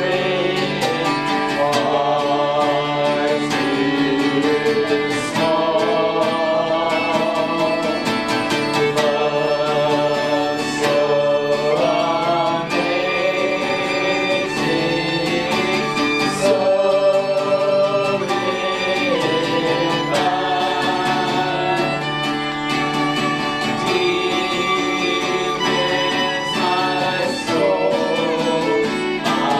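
Singing with acoustic band accompaniment: fiddle and guitar in a bluegrass-country style.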